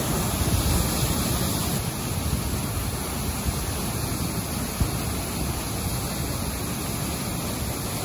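Creek water rushing over rocks in a strong wet-season current below a waterfall, a steady, even rushing noise.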